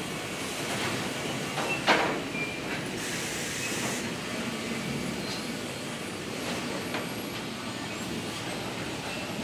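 Steady din of woodworking factory machinery and conveyors running, with a sharp loud clack about two seconds in and a few fainter knocks after.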